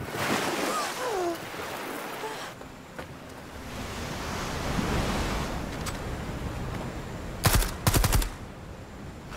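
Rushing whitewater of a river in rapids, then two short bursts of automatic rifle fire near the end, the loudest sound in the clip.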